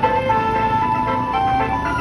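Multi-tone Basuri 'telolet' horn on a tour bus playing a melody: a string of held notes that step up and down in pitch, over the low rumble of the bus.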